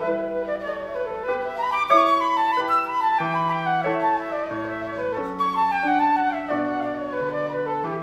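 Concert flute playing a solo melody of quick, moving notes. Lower accompaniment notes are held underneath it, changing about once a second.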